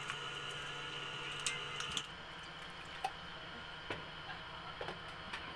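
Live eels and water sliding and squishing in a metal pot, faint, with drips and a few sharp small clicks over a steady low hum.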